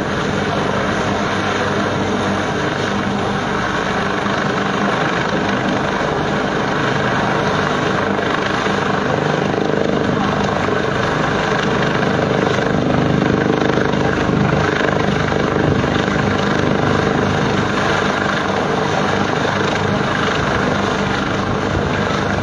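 Military helicopter hovering, its rotor and turbine making a steady, loud noise that swells slightly around the middle.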